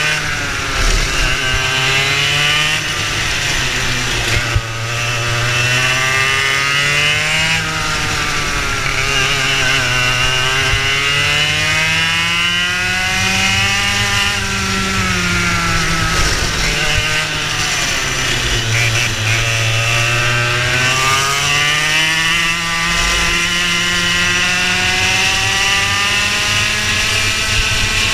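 Racing kart engine heard on board at race pace, its pitch climbing on the straights and falling away as the kart slows for corners. It dips about four seconds in and again past the middle, and climbs highest in between.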